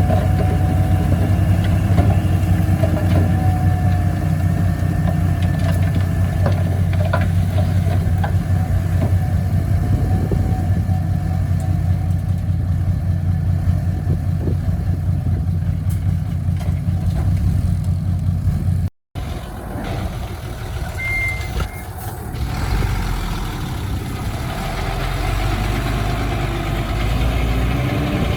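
Heavy diesel engines of earthmoving machinery running steadily with a deep drone. About two-thirds of the way through, the sound cuts out for an instant and resumes with a lighter engine sound.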